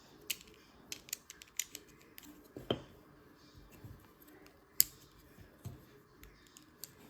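LEGO plastic pieces being handled and pressed together: scattered, irregular sharp clicks, the loudest about five seconds in.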